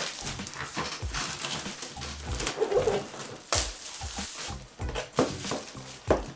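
Plastic shrink-wrap being peeled and pulled off a cardboard box, with irregular crinkling and crackling.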